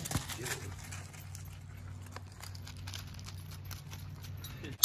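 Dog walking on gravel, its paws crunching in light, irregular steps, over a steady low hum.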